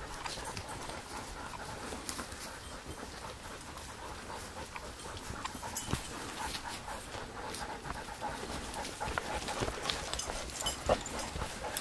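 Siberian huskies panting steadily as they walk on leash, with scattered clicks and rustles of walking on the trail.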